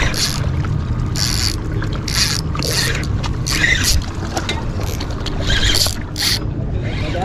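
Wind rumbling on the microphone, with short hissing bursts about every second.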